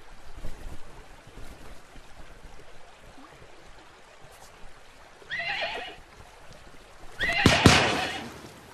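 Horse whinnying twice over a faint background hiss: a short whinny about five seconds in, then a longer, louder one near the end.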